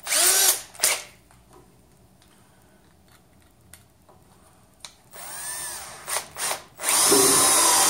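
Milwaukee 18V cordless drill driver: a short trigger burst of the motor at the start, a pause, then the motor winding up again about five seconds in and running steadily through the last second as it drives a 3-inch screw into a 4x4 with no pilot hole. The final run is the loudest part.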